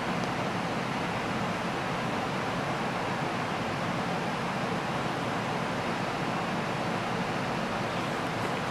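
iPhone loudspeaker with water inside, driven by a very low test tone of about 20 Hz from a sound-generator app, giving a steady, even hissing buzz as the water is shaken in the speaker.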